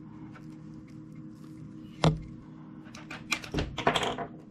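Stiff steel wire strands of an aircraft control cable clicking and scraping as they are bent and tucked through the lay by hand in a woven cable splice. One sharp click about two seconds in, then a run of quick clicks and scratchy rustling near the end.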